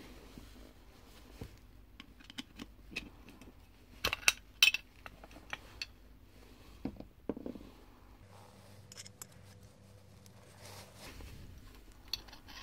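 Screwdriver clicking and scraping against the metal end housing of a shaded-pole fan motor, prying at the shield that holds its sleeve-bearing bushing. Scattered sharp metallic clicks, the loudest a quick cluster about four seconds in.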